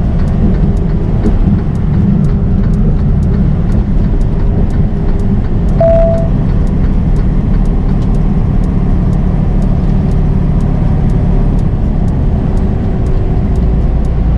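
Steady engine and road drone inside a semi-truck's cab while it drives on the highway, with a short beep about six seconds in and a faint ticking about twice a second.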